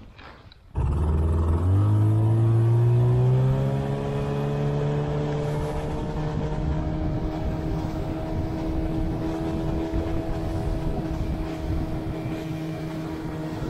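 Outboard motor on an inflatable boat, starting abruptly about a second in, rising in pitch over the next few seconds as the boat picks up speed, then running steadily at speed over a rush of water and wind.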